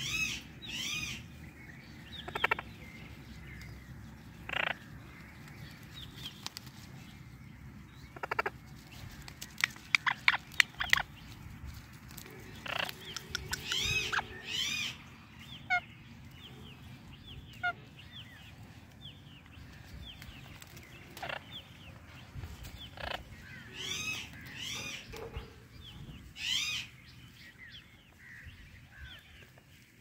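Parrots calling: an Indian ringneck parakeet and an Amazon parrot giving short squawks and arched whistled calls in scattered bouts, with a rapid run of short sharp calls about a third of the way through as the loudest part.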